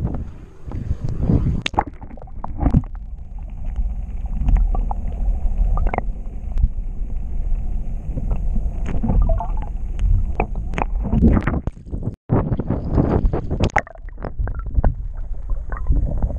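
Muffled rumbling and water sloshing from a GoPro in its waterproof housing held under the sea surface, with scattered knocks against the housing. The sound cuts out briefly about twelve seconds in.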